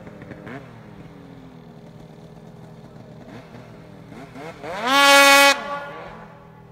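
Two-stroke mountain snowmobile engine revving: a few short throttle blips, then about five seconds in a steep rising rev to a loud held high pitch for under a second, falling away as the throttle is let off.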